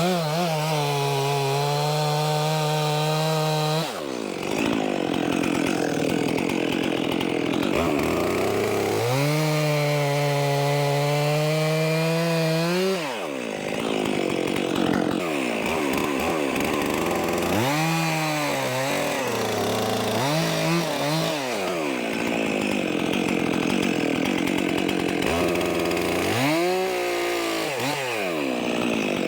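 Stihl MS 400 C two-stroke chainsaw bucking firewood logs. The engine revs up to a high, steady pitch, then falls away into rougher cutting noise, several times over.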